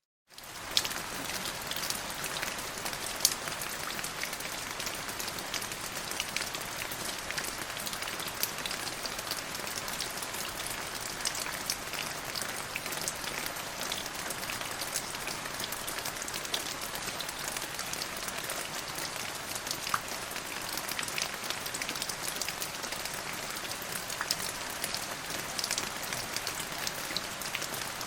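Steady rain, an even hiss with many separate drop hits heard as small clicks.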